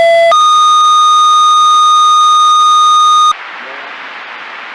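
Fire dispatch radio sending a two-tone sequential page: a lower steady tone ends just after the start, then a higher tone holds for about three seconds and cuts off suddenly into radio hiss. These are the alert tones that set off the fire department's pagers ahead of the spoken dispatch.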